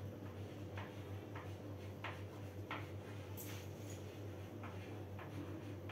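Chalk writing on a blackboard: a run of short, sharp taps and scratches, one for each stroke of the chalk, coming irregularly about once or twice a second.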